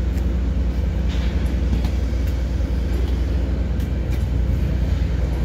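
Steady low drone of an engine running at a constant pace, with no rise or fall.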